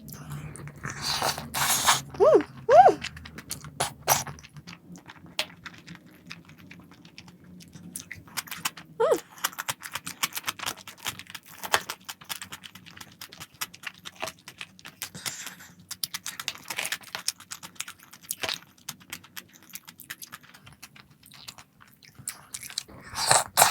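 Close-up eating sounds: chewing and biting with many small wet clicks and some crunches, scattered irregularly.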